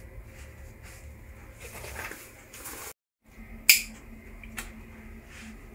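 A single sharp click a little over three and a half seconds in, with a fainter one about a second later, over faint room noise.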